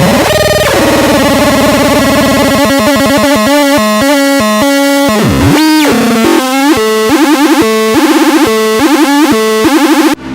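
Handmade noise synth with four cross-modulated square-wave oscillators, playing a harsh buzzing drone. About halfway the pitch swoops down and back up, then the sound breaks into a fast stuttering pulse before cutting off suddenly near the end.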